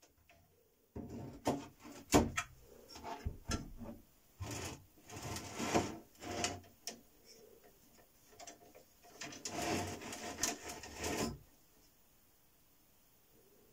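Handling noise: irregular knocks, clicks and scraping as a PTFE lid carrying metal electrode plates is lifted out of a plastic jar and turned over in the hand. The sharpest knock comes about two seconds in, and the handling stops a couple of seconds before the end.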